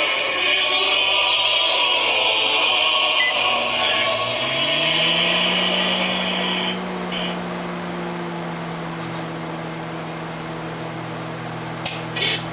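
Music playing from a Bluetooth speaker, then a 1200-watt Panasonic microwave oven starts about four and a half seconds in, its hum gliding up and settling into a steady drone. About two seconds later the music cuts out, briefly blipping back once: the microwave's radio interference is breaking the speaker's Bluetooth link. A few short sounds follow near the end.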